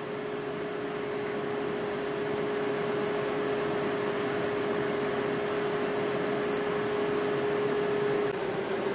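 Steady mechanical hum over an even hiss, with a constant low tone and a faint high whine, slowly growing a little louder; no clicks or knocks stand out.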